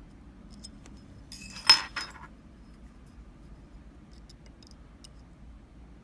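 Metal lock-picking tools clinking against an Iseo dimple lock cylinder during picking: a short cluster of sharp metallic clinks about a second and a half in, then a few faint light ticks.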